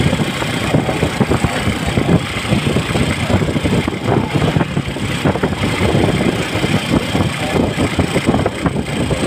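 Engine and road noise of a small motor vehicle being ridden along a road, heard from on board as a steady, fairly loud rumble.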